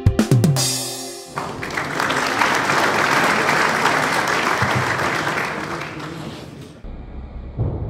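A few sharp knocks and a short falling tone, then a crowd applauding and cheering for several seconds, which cuts off suddenly near the end.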